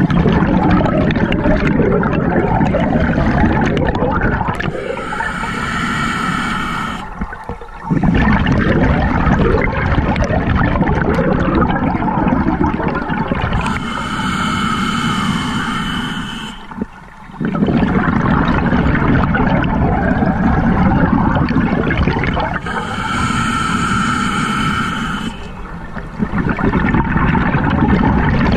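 Scuba diver breathing through a demand regulator underwater: three long hissing inhalations of about two and a half seconds each, each followed by a longer rumble of exhaled bubbles, about one breath every nine seconds.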